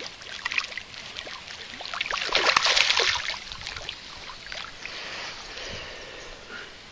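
Hooked tararira (trahira) thrashing and splashing at the surface of shallow water at the bank as it is pulled in, with a burst of heavier splashing about two to three seconds in.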